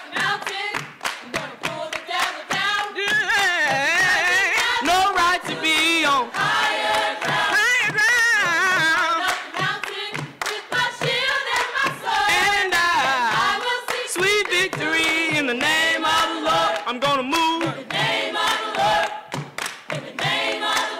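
Gospel choir of mixed male and female voices singing a cappella, with hand claps keeping a steady beat.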